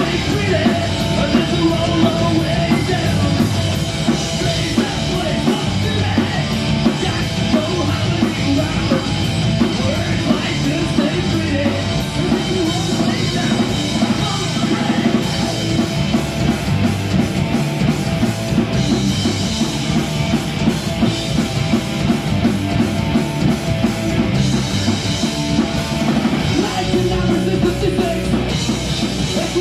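Live heavy rock band playing loud and without a break: electric guitar, bass and a drum kit, with a singer's vocals over them.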